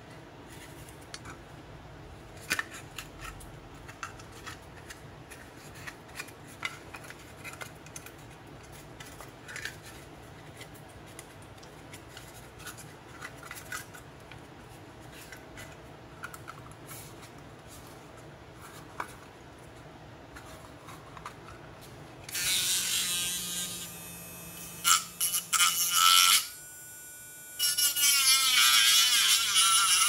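Light clicks and taps of a plastic adapter case being handled, then, about 22 seconds in, a handheld rotary tool running at high speed with its thin bit grinding into the seam of the plastic case. It stops briefly and starts again near the end.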